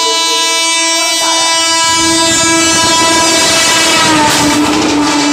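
WAP4 electric locomotive's air horn sounding one long steady blast as the express runs through the platform at speed. The horn dips slightly in pitch about four seconds in as the locomotive passes, and the rush and clatter of the train grows louder from about two seconds in.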